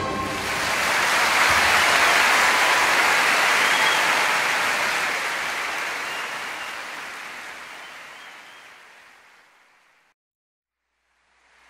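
Audience applause that swells briefly, then fades gradually and dies out to silence about ten seconds in.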